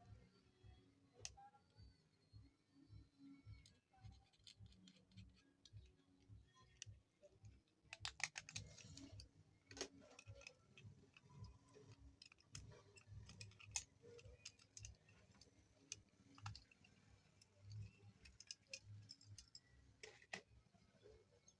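Faint, scattered clicks and taps of small plastic parts as a Tecno T101 keypad phone is handled and pried open, with a quick run of clicks about eight seconds in.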